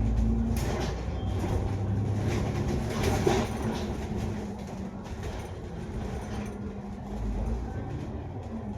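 Double-decker bus running in traffic, heard from on board: a steady low engine hum and rumble with body and fittings rattling throughout, and a louder clatter about three seconds in.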